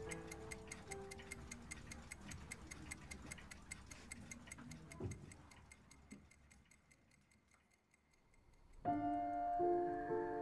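Clock ticking fast and even, about five ticks a second, under a few fading piano notes. The ticking dies away about two-thirds of the way through, then piano music comes in near the end.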